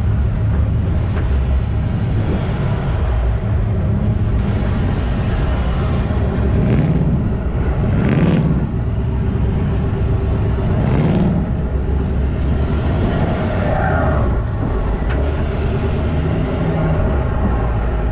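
Vehicle driving slowly, a steady low engine and road rumble, with a couple of brief louder rushes of noise about halfway through.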